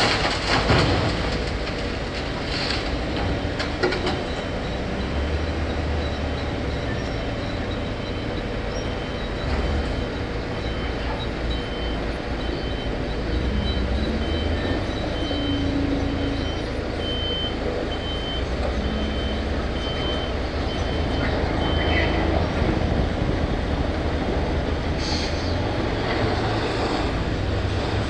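Heavy diesel earthmoving machinery running with a steady low drone, a brief knock near the start, and a reversing alarm beeping at an even pace for about ten seconds in the middle.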